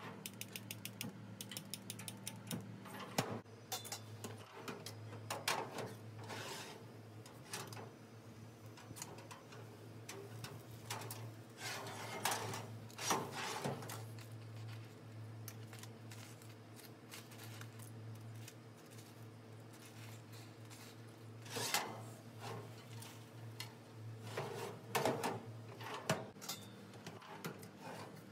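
A commercial stainless-steel oven being worked: a quick run of clicks at the start, then scattered knocks and clatters of the metal door, wire racks and baking tray, over a steady low hum.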